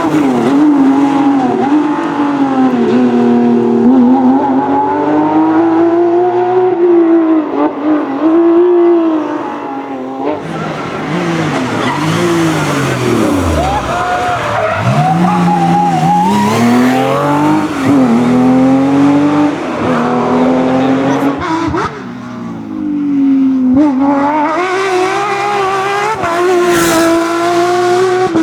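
Porsche racing car engines running hard, their pitch climbing and falling again and again with throttle and gear changes, with deeper drops as cars brake or pass.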